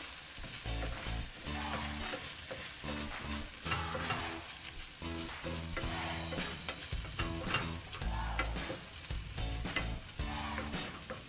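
Ground pork sizzling as it browns in a flat frying pan, with a wooden spatula repeatedly scraping and stirring it across the pan's surface.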